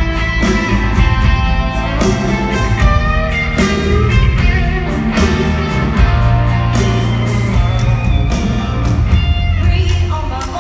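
Live country-rock band playing at concert volume: electric guitar over bass and drums, with some singing.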